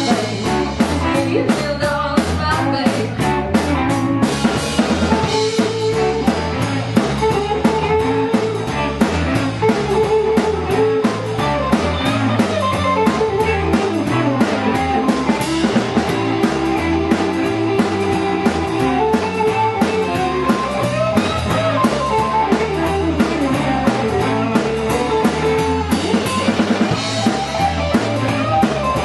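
Live blues band playing an instrumental passage: two electric guitars over a steady drum-kit beat, with little or no singing.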